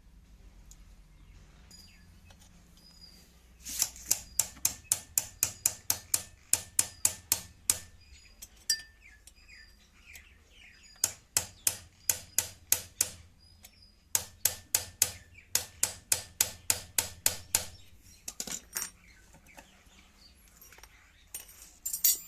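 Sewing machine being run in two spells, clicking evenly about four to five times a second as the mechanism cycles stitch by stitch.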